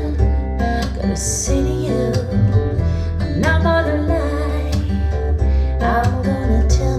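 A song played back through Audio Note AN-J/LX hi-fi loudspeakers and picked up in the room: acoustic guitar over a strong, steady bass line, with a singing voice coming in about three and a half and six seconds in.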